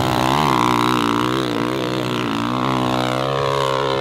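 Dirt bike's engine revving hard on a steep hill climb, its pitch rising and falling as the rider works the throttle.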